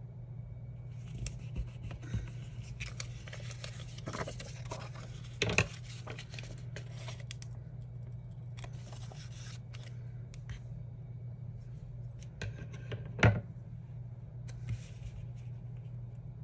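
Small scissors snipping through a paper sticker, with paper rustling and being handled. Two sharp clicks stand out, one about five seconds in and a louder one about thirteen seconds in. A steady low hum runs underneath.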